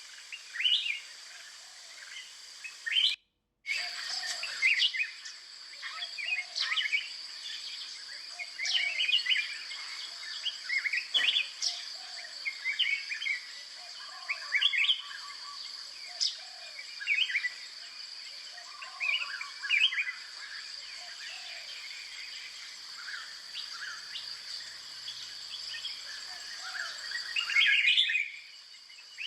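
Birds chirping and calling continuously, many short overlapping calls, with a lower call repeating about every two seconds over a steady high hiss. The sound cuts out completely for a split second about three seconds in.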